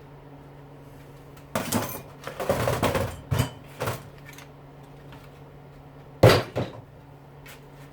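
Clattering and knocks from the parts of a dishwasher motor being handled and moved on a work surface during teardown. There is a burst of rattling for a couple of seconds, then one sharp knock a few seconds later, over a steady low hum.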